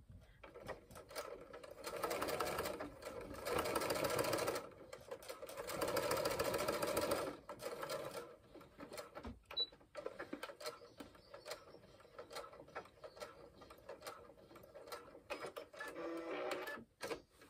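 Brother electric sewing machine stitching a seam through fabric, running in two bursts of a couple of seconds each, then going quieter for the rest.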